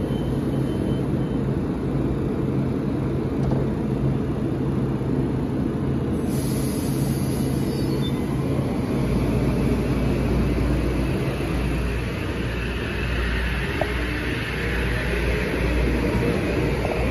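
Metro-North M8 electric multiple unit pulling slowly out of the platform, with a steady rumble of wheels and equipment. From about halfway through a deeper rumble and a slowly rising whine set in as the train picks up speed.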